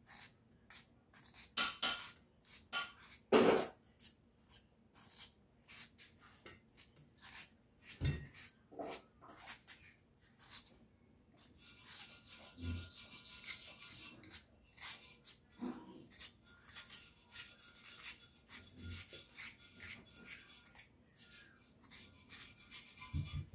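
Small knife shaving thin slices off a peeled raw potato held in the hand: an irregular run of short, crisp cutting strokes, one or two a second, with a louder knock about three seconds in.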